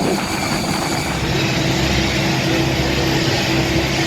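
Steady hum and rumble inside a parked Airbus A321's cabin, with a held low tone; the higher hiss drops away about a second in.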